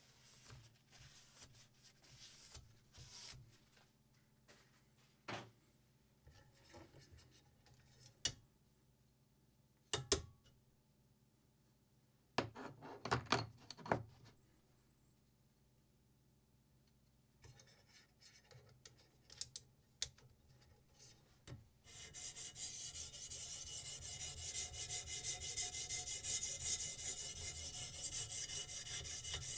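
Scattered clicks and knocks of a knife and sharpening gear being handled, then, about three-quarters of the way through, a knife blade starting to be ground on a sharpening stone: a continuous, gritty rasping that goes on steadily.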